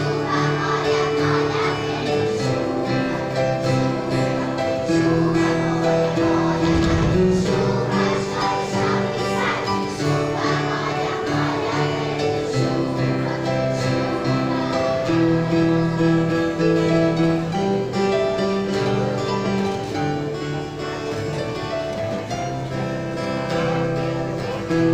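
Children's choir singing a song in held, stepping notes, accompanied by a strummed acoustic guitar and a piano.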